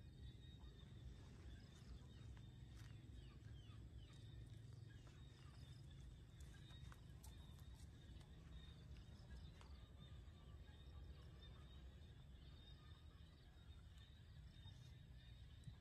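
Near silence: a faint outdoor background with a low rumble and a thin, steady high tone. A few faint clicks and short chirps come in the first ten seconds or so.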